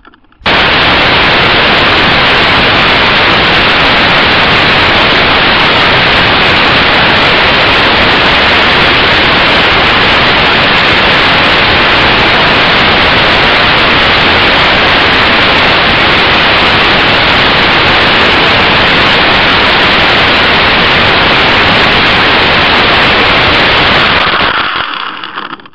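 Loud, steady static-like hiss in the lighter spy camera's own audio, switching on abruptly and cutting off near the end.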